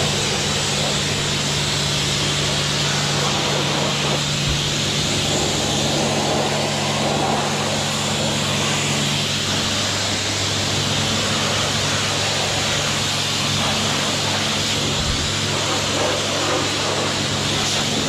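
High-pressure jet wash lance spraying water onto a muddy dirt bike's knobbly tyre, chain and frame: a steady hiss of spray with a steady low hum underneath.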